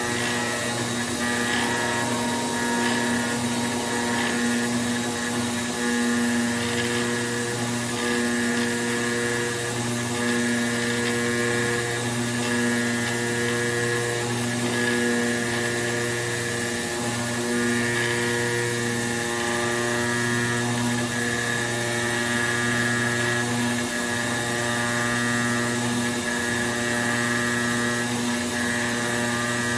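CNC cutter's router spindle running steadily as it mills E-flute corrugated board: a constant machine hum and whine, with brief dips in the tone every few seconds as the head moves along the cut.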